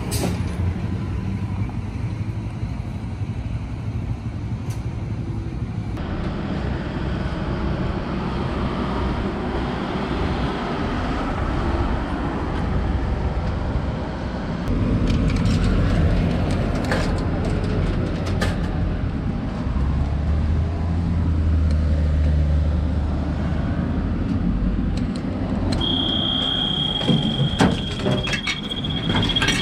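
Steady low rumble of road traffic and running vehicles, with a few scattered clicks and knocks. Near the end, a steady high electronic beep lasts about three seconds, with several clacks, as the ice cream vending machine is worked.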